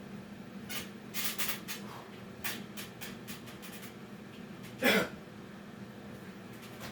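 Scattered light clicks and rustles of movement over a steady low hum, then about five seconds in one short, loud vocal sound from a man that falls in pitch, like a sharp cough or exhale.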